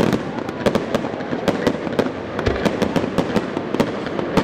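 Aerial fireworks going off: many sharp bangs and crackles, several a second, over a continuous rumble of bursts.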